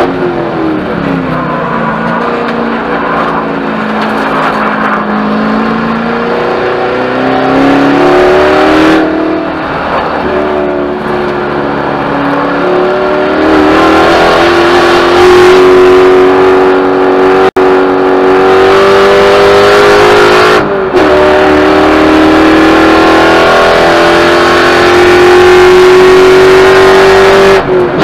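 Spec Corvette's V8 engine at racing speed, heard from inside the car: the revs fall off at the start, climb again through a couple of upshifts, then hold a high, steady note through the second half with brief lifts near the end, over wind and road noise.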